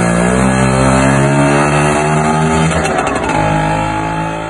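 Loud two-stroke engine of a 1979 Vespa 50 Special running through a new aftermarket exhaust, its revs dipping and rising. The exhaust note is loud and raucous.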